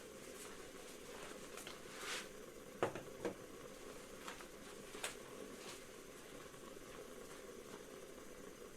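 A few light knocks and clicks of objects being handled, over a faint steady hiss. The loudest is a pair of knocks about three seconds in, with a single click about two seconds later.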